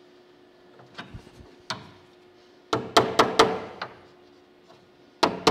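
Hammer and dolly working the edge of a 1970 Holden HG ute's steel roof skin, tapping the new patch into line for welding. Two light taps, then a quick run of about five sharp metallic strikes around three seconds in, and more strikes starting near the end.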